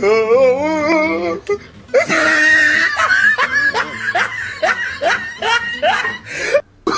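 A drawn-out wavering vocal sound, then from about two seconds in a run of laughter, rhythmic rising 'ha' syllables about three a second, cutting off abruptly just before the end.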